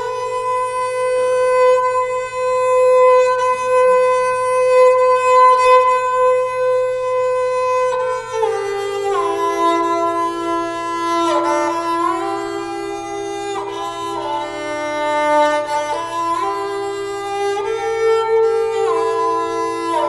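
Slow, calm instrumental background music: one long held note for the first several seconds, then a slow melody of long notes that slide from pitch to pitch.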